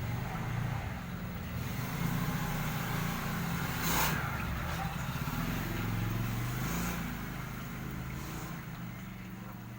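A motor vehicle engine running close by, its low pitch shifting up and down, with a short hiss about four seconds in.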